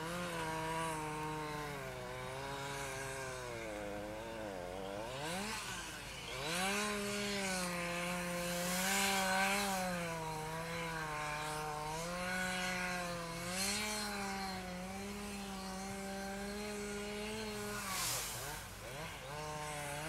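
Two-stroke chainsaw cutting down into thick ice, its engine note rising and falling as the throttle is worked and the bar loads in the cut. The pitch sags and sweeps back up about four seconds in and again near the end.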